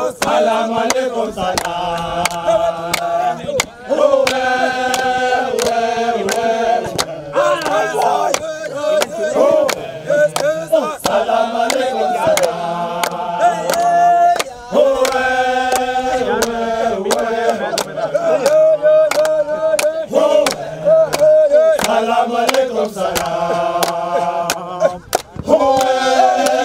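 A group of men singing a celebration chant together, repeating the same phrases, with steady hand clapping in time.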